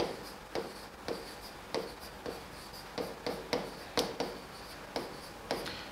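Chalk writing on a blackboard: about a dozen short, irregular strokes and taps as letters are written, with a faint squeak on some strokes.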